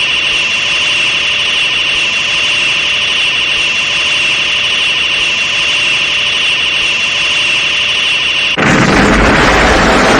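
Storium Ray beam sound effect from Ultraman: a loud, steady, high buzzing hum. About eight and a half seconds in it gives way to a loud explosion-like burst that starts to fade near the end.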